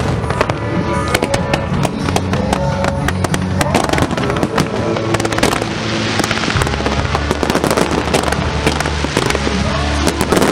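Aerial fireworks display: a dense, continuous run of bangs, pops and crackles from bursting shells and comets, with music playing beneath. The crackling thickens a little after the middle.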